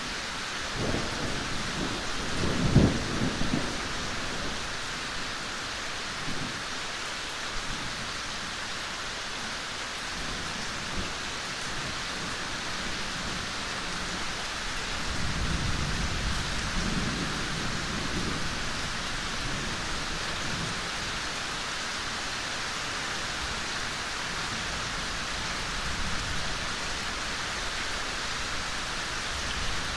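Steady rain falling, with low rolls of thunder: one rumbling from about a second in and peaking near three seconds, and a longer, softer roll around the middle.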